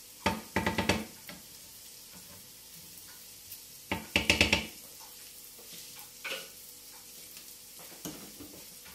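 Wooden spatula stirring and scraping egg-and-kebab bhurji in a non-stick frying pan, in short bursts near the start and about four seconds in, over a faint sizzle of the food frying.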